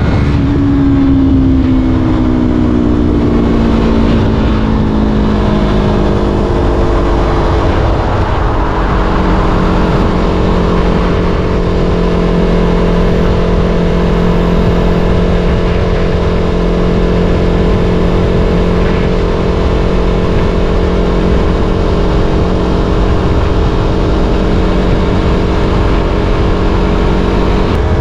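Yamaha R3 motorcycle's parallel-twin engine running on the move: its pitch falls over the first several seconds as it slows, then holds steady at cruising revs, rising slightly near the end. Heavy wind rumble on the microphone underneath.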